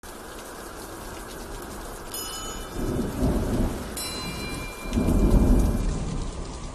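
Steady rain with two rolls of thunder, a first swelling about three seconds in and a louder, longer one about five seconds in.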